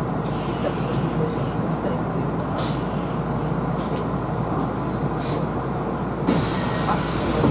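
Steady hum of a Kintetsu Series 21 electric train standing at a station, heard from inside the driver's cab, with a few short hisses.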